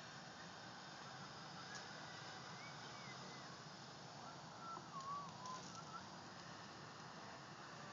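Handheld butane torch burning with a steady low hiss as its flame melts a plastic bottle, with a few faint warbling bird calls over it.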